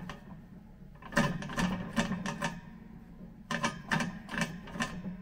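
Two bursts of rapid metallic clicking and rattling from steel tumbler parts being handled, the first about a second in and the second near the end.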